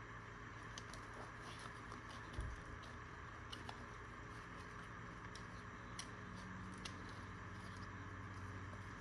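Faint scattered clicks and light rustling of small gear being handled by hand, with one soft thump about two and a half seconds in, over a steady low hiss.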